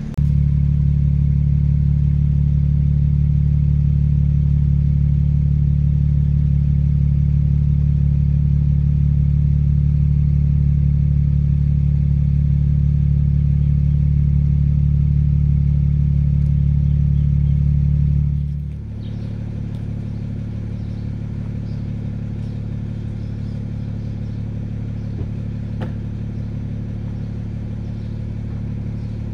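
BMW 335i's N54 twin-turbo straight-six idling steadily through its stock M Sport exhaust, fully warmed up. About two-thirds of the way in the note becomes quieter and slightly different in pitch, still a steady idle.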